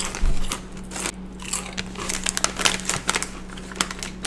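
Crunching on Quest Chili Lime protein chips, a run of quick sharp crackles, with the crinkle of the plastic chip bag as a hand reaches in for another chip near the end.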